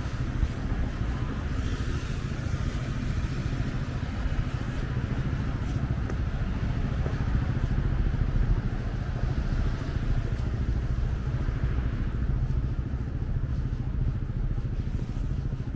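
City street ambience with motor traffic going by, a steady low rumble.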